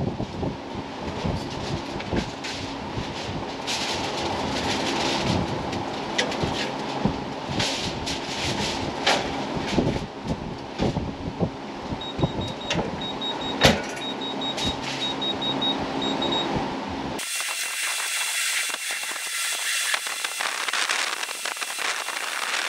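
Sharp metal clinks and knocks from working over the open cooking chamber of an offset smoker, the loudest about two thirds of the way in, over a steady low hum. At about three quarters of the way in the sound cuts abruptly to a thin high hiss.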